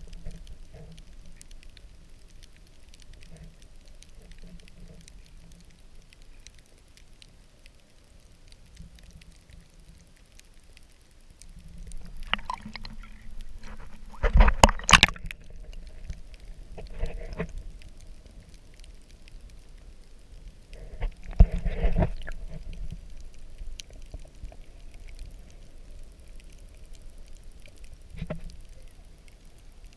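Shallow seawater heard partly underwater: a low, muffled water noise, broken by loud splashing and sloshing at the surface a little before halfway and again about two-thirds of the way in.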